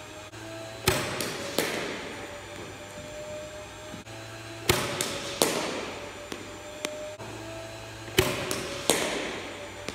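Three deliveries in an indoor cricket net, each a quick run of about three sharp cracks: the ball pitching on the concrete floor and meeting the bat, echoing in the hall. A low machine hum comes on shortly before each delivery and stops at the first crack.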